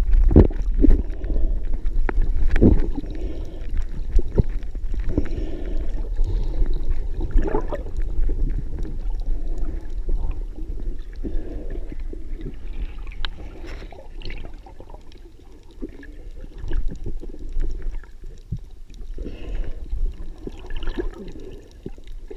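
Muffled water sloshing and gurgling around a camera held at the surface and dipping under it, with a low rumble and irregular knocks as water and handling bump the housing.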